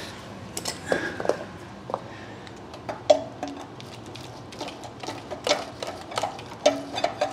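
Irregular metallic clinks and knocks, some ringing briefly, as a Gen3 6.0 LS engine hanging from an engine hoist is worked loose from its mounts and bellhousing by hand.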